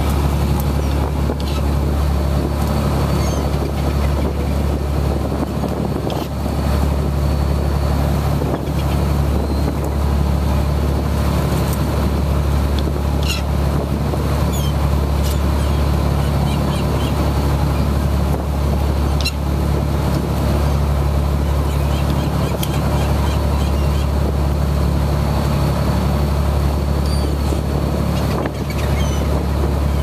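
A fishing boat's engine running steadily under way, a loud, even low drone, with wind and rushing water over it. A few faint, short, high squeaks come now and then.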